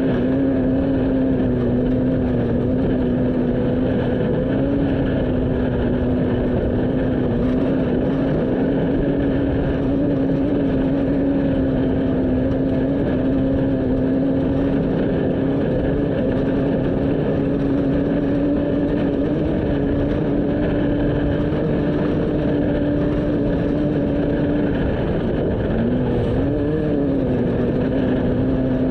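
Off-road race vehicle's engine running hard at a steady pace over a constant rush of road and wind noise. The engine note dips briefly near the end and comes back up, as if easing off and getting back on the throttle.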